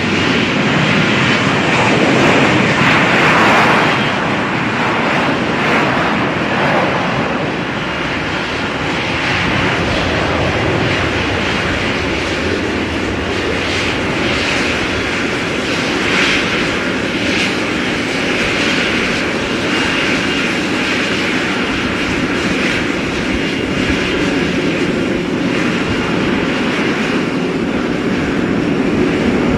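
Jet airliner's engines running, a loud, steady noise that is a little louder in the first few seconds and then evens out.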